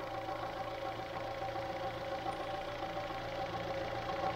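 Fiat Strada pickup's engine idling steadily, an even hum with no change in speed.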